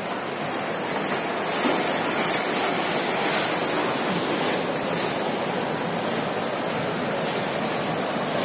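Steady rushing ambient noise of a large, busy shopping-mall hall, an even wash of sound with no distinct events.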